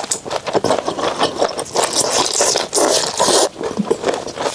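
Close-miked eating of sour-spicy braised chicken feet: wet chewing and smacking with dense clicks and crackles as the skin and small bones are gnawed. Longer hissing sucks come about two and three seconds in.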